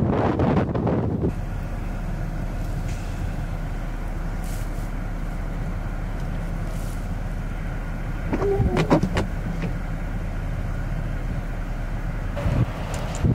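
A vehicle passing on a snow-covered road in strong wind, then a steady low rumble of traffic. A brief pitched sound comes about eight and a half seconds in.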